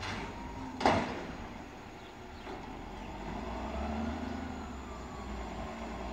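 Reach stacker handling a shipping container: one sharp, loud metal clank about a second in, then the machine's engine rising and falling with a whine that climbs and drops over a couple of seconds.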